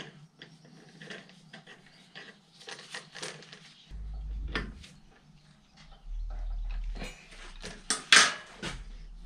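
Small metal parts being handled: scattered clinks and knocks, two stretches of low rumble in the middle, and a sharper metallic clank about eight seconds in.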